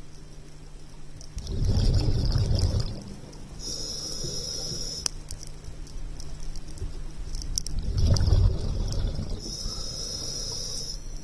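A scuba diver breathing through a regulator underwater: a rumbling rush of exhaled bubbles about a second and a half in and again about eight seconds in, each followed by the hiss of an inhalation through the regulator, over a faint steady hum.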